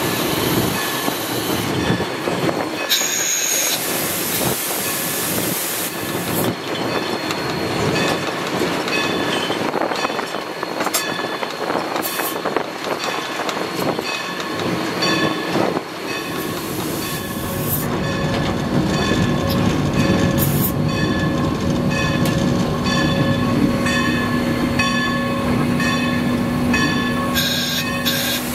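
Steam locomotive Everett Railroad #11, a 2-6-0, running, heard from inside its cab: a steady rumble of running gear and track, with its wheels squealing in held high tones and a lower drone joining about halfway through as it works into a curve. A short hiss-like burst about 3 seconds in.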